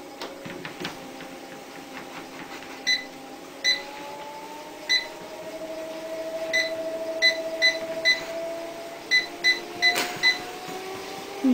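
Treadmill drive motor whining as the belt runs, its pitch rising in steps as the speed is turned up. About a dozen short electronic beeps sound from the console as the speed buttons are pressed, some singly and some in quick runs.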